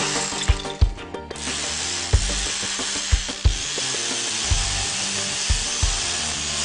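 Bosch GBH 2-24 DRE SDS-plus rotary hammer running with a steady noisy whir that drops away briefly about a second in, over background music with a steady beat.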